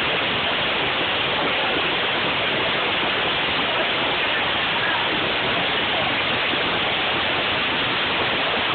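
Heavy downpour of rain mixed with hail, a loud, steady, dense hiss of water striking the pavement, tables and umbrellas.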